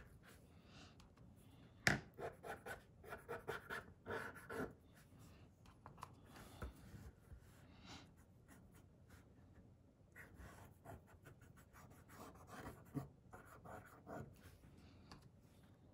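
Cotton swab rubbing chalk onto a paper cut-out: faint, quick scratchy strokes in two spells, with a single sharp tick about two seconds in.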